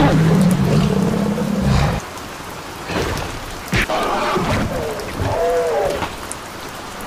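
Thunderstorm sound effects: steady rain hiss with a deep rolling thunder rumble that fades out about two seconds in. A sharp thunderclap follows near the middle, with a couple of short wavering pitched sounds after it.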